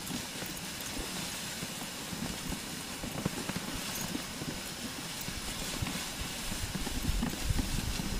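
A moving dog sled on a snow trail: a steady hiss of the runners over the snow with the many small scuffs and taps of the sled dogs' running paws, and a low rumble building near the end.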